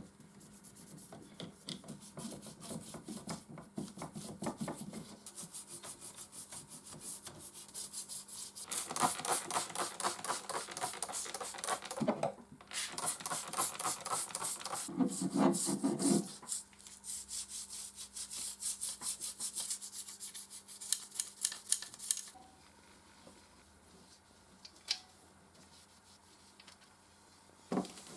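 Brisk scrubbing, many quick rubbing strokes on typewriter parts being cleaned. They grow loudest about a third of the way in, pause briefly, then die away about three quarters through, leaving a quieter stretch with a couple of light clicks.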